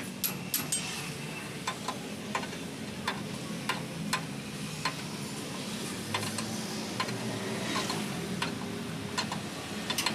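Sharp metal clicks, about one to two a second, from a wrench being worked on a truck's leaf-spring U-bolt nuts. A low steady hum runs underneath.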